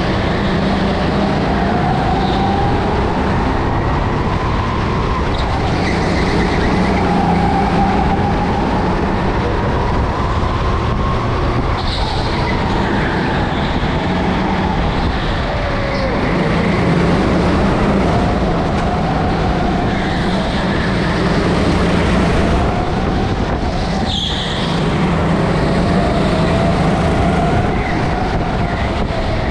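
Rental go-kart's motor heard onboard while lapping, its pitch rising and falling with speed through the corners over a steady drone, with a couple of short sharp knocks.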